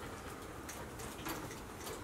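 Golden retriever puppies' claws and paws clicking and scuffling on a hard floor as they play-wrestle: faint, irregular light clicks.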